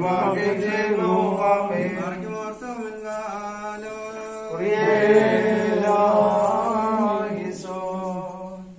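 Voices chanting a Christian liturgical prayer-hymn together in melodic, held phrases during a house-blessing service. The chant stops just before the end.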